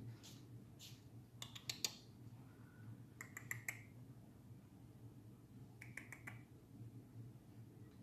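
Small pet parrot giving soft, clicky chirps in three quick bursts of a few notes each, over a faint low hum.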